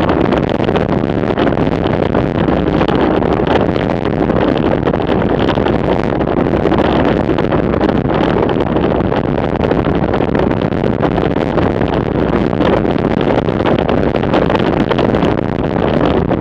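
Steady rush of wind buffeting the microphone of a camera on a bicycle descending at about 55 km/h.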